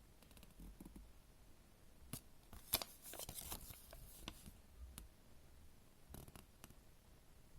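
Small plastic and wrapper handling from unpacking a Kinder Surprise egg: a sharp click about three seconds in, crinkling and rustling for a couple of seconds, then a few lighter clicks.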